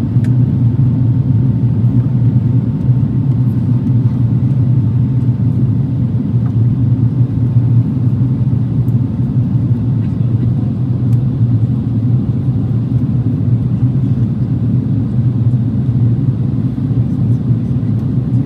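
Steady low rumble of an Airbus A330-200 airliner in flight, engine and airflow noise heard from inside the passenger cabin. A faint steady tone sits above the rumble for the first half.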